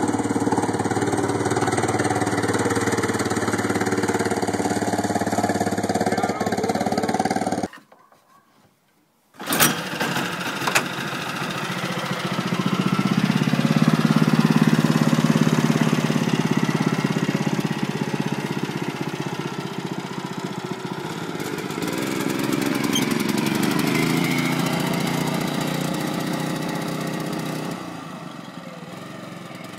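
Small engine of a mini Plymouth Superbird go-kart running steadily, cut off by a brief silence. Then a small engine in a red mini car runs, swelling and fading twice as the car drives around.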